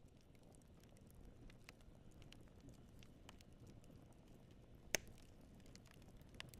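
Fireplace fire crackling quietly, with scattered small pops and one sharp, louder pop about five seconds in.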